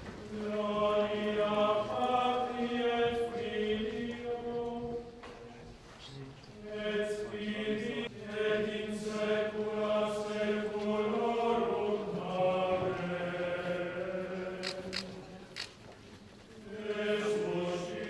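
Unaccompanied liturgical chant sung by a group of voices, in long held phrases with three short breaks between them.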